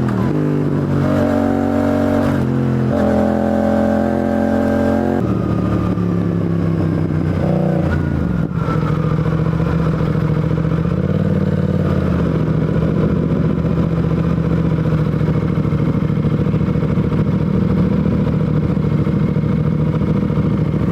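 Yamaha YZF-R7's CP2 parallel-twin engine and exhaust under way. The engine note steps and slides up and down in the first five seconds, dips briefly around eight seconds, then holds steady.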